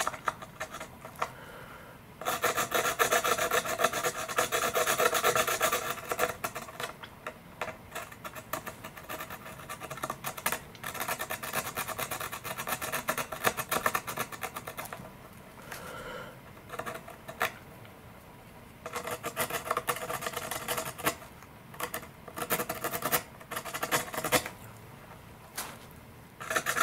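Small file rasping back and forth on carbon composite around a wiring connector, in several bursts of quick strokes with short pauses, the loudest in the first few seconds. It is roughening the bonding area to clear off mold release wax before gluing.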